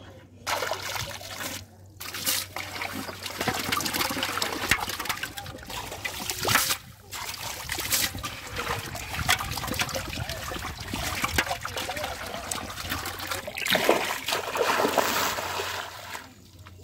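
Water splashing and trickling: catfish thrashing in a metal pot of water, and feet wading through shallow water.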